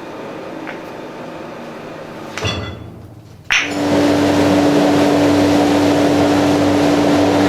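Workshop machinery. A machine runs steadily, then a motor switches on suddenly about three and a half seconds in and keeps running with a steady hum and a loud rushing noise.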